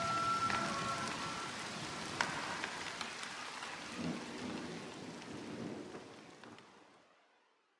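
Rain hissing with a low rumble of thunder about four seconds in, as the outro of a music track, a couple of held tones dying away at the start; it all fades out to silence near the end.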